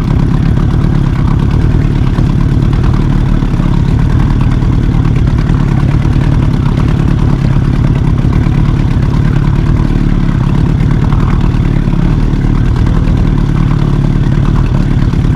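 Outboard motor running steadily at trolling speed, heard from on board the boat.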